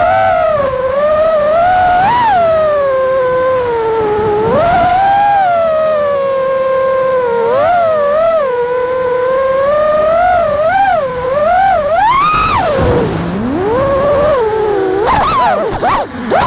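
Electric motors and propellers of an FPV racing quadcopter whining in flight, the pitch rising and falling with the throttle and swooping up sharply in quick punches. In the last second or so the whine wobbles rapidly.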